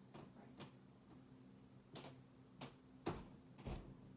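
Near silence: faint room tone with a low hum and a few soft, scattered clicks.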